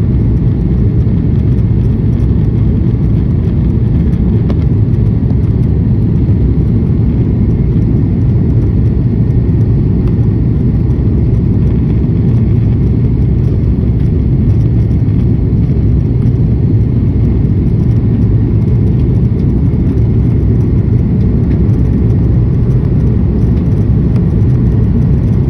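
Steady low rumble of engine and airflow noise inside the cabin of an Airbus A330-300 airliner, unchanging throughout.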